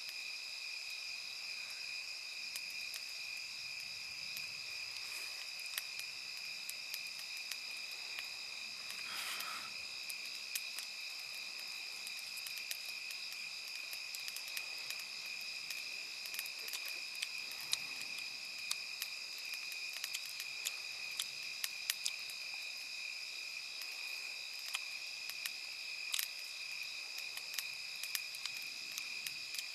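Night insects, crickets among them, trilling in a steady chorus of several high tones, with a campfire of sticks crackling in frequent sharp pops.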